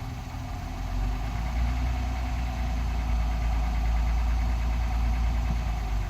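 2021 Honda Passport's 3.5-litre V6 idling steadily with an even, repeating knock, which the owner reports in the brand-new engine at idle and low rpm.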